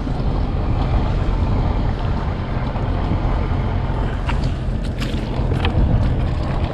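Strong wind buffeting the microphone as a steady, loud rumble, with a few sharp clicks in the second half.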